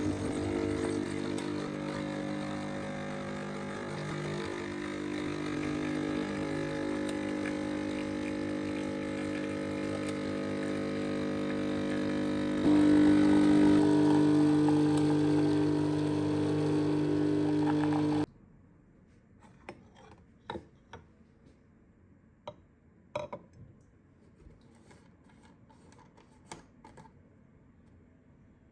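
A household electric motor appliance running steadily. It jumps louder at about thirteen seconds, as if switched to a higher speed, and cuts off suddenly at about eighteen seconds. After that come a few faint clicks and knocks.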